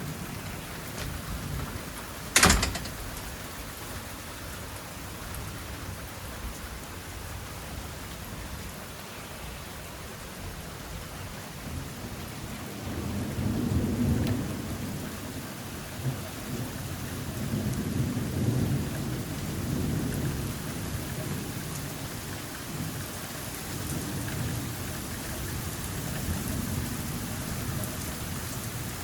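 Heavy rain falling steadily, with one sharp crack about two seconds in. Through the second half, thunder rolls in long, low swells.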